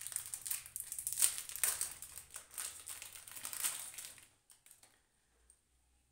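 Small clear plastic packet crinkling and crackling as it is opened by hand. The crackling stops about four seconds in, leaving a few faint clicks.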